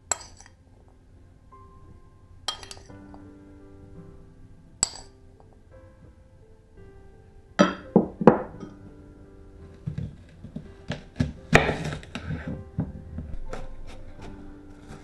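A metal spoon clinks against a ceramic bowl and glass dish a few times as kidney beans are spooned in, followed by a few loud knocks about halfway through. In the last few seconds a knife chops quickly on a wooden board, dicing red onion. Soft piano music plays throughout.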